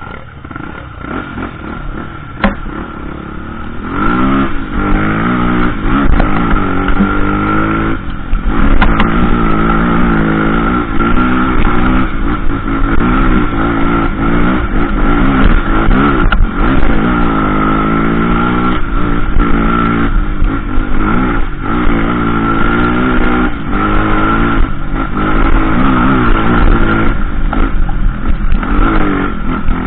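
Trail motorcycle engine revving hard, its pitch rising and falling again and again as the throttle is worked, growing louder about four seconds in. A few short knocks and clatters come through.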